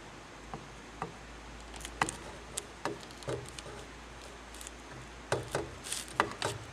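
Irregular light clicks and taps of small hardware and the vent window frame being handled during reassembly, about a dozen, coming closer together in the second half.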